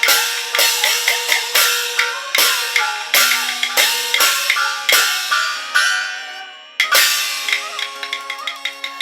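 Qin opera accompaniment: wooden clappers, drum and cymbals strike in a quick rhythm, about two to three hits a second, over a sustained melodic instrument line. The strikes fade briefly, then a loud strike about seven seconds in starts the next phrase.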